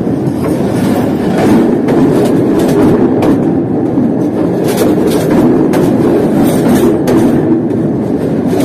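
Passenger coaches of a train rolling directly over the microphone: a loud, steady rumble of steel wheels on the rails, with clickety-clack knocks every second or so as the wheelsets pass over rail joints.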